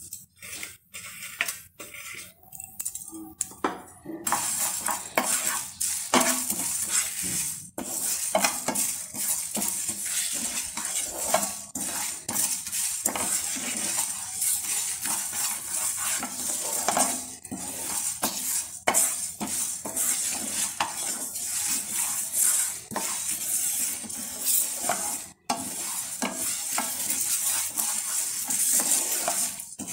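Whole spices (coriander seeds, fennel, bay leaf, dried red chillies) being dry-roasted and stirred with a spatula in a dry non-stick pan: seeds rattling and the spatula scraping the pan. A few scattered scrapes at first, then steady stirring from about four seconds in.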